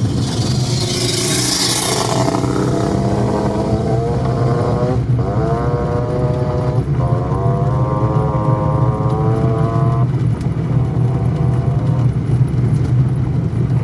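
1987 Suzuki LT500R quad's 500 cc single-cylinder two-stroke engine revving hard as it accelerates away. The pitch climbs, drops at an upshift, and climbs again twice before holding steady.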